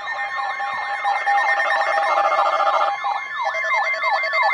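Several weather alert receivers sounding their alarms together: a siren-like tone sweeping downward about three times a second over a steady high alarm tone, with pulsed beeping that changes pitch about three seconds in. The alarms announce an incoming weather warning.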